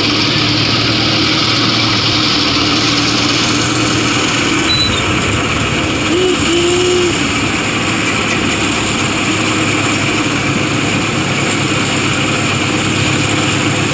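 Engine of a Chance Rides miniature train locomotive running steadily as the train rolls along.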